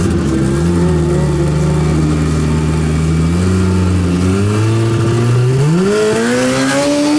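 Turbocharged Yamaha Apex four-stroke snowmobile engine running at the start line, holding a low steady note and then stepping up in revs twice. Over the last second and a half the revs climb steadily.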